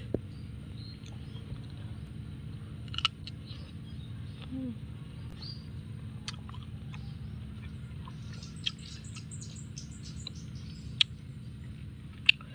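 Close mouth sounds of eating nam-nam fruit with rujak sauce: scattered sharp smacks and clicks of biting and chewing over a steady low background hum. A bird chirps in a quick run about two-thirds of the way through.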